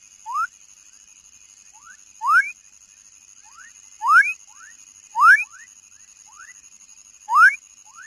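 A young frog calling: short whistles that each rise quickly in pitch, five loud ones a second or two apart, with fainter rising whistles between them. A steady high-pitched drone runs underneath.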